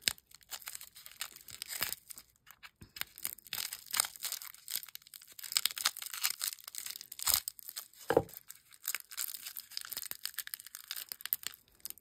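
Clear plastic wrapping crinkling and tearing as it is pulled and picked at by hand, in quick irregular crackles, with a single dull knock about eight seconds in.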